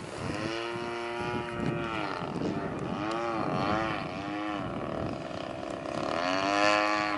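A 35cc two-stroke gas engine on an RC Sbach aerobatic plane in flight, running with a steady note at first, then swooping up and down in pitch several times as the plane manoeuvres, and swelling loudest near the end.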